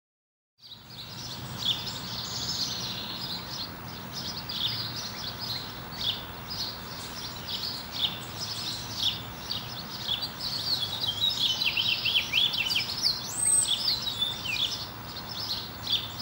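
Many small birds chirping and trilling over a steady outdoor background hiss. It begins about half a second in, after a moment of silence.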